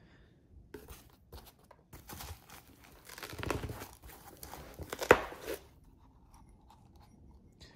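Packing paper crinkling and rustling as glassware is handled and lifted out of a foam-lined box, with a sharp click about five seconds in. The handling stops a couple of seconds before the end.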